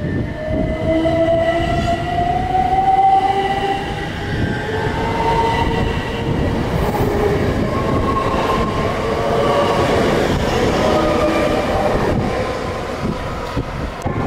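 Bombardier Electrostar electric multiple unit on the move, its traction motors whining and the whine rising in pitch over the first few seconds as the train picks up speed. Underneath runs a steady rumble of wheels on the track.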